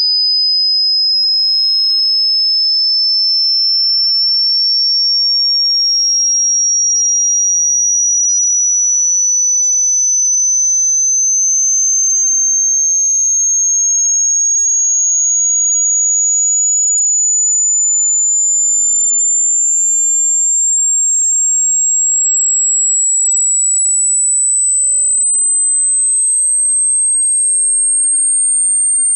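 Hearing-test sine tone: a single pure, high-pitched tone climbing slowly and steadily in pitch at an even level. It is a frequency sweep that checks how high a listener can hear.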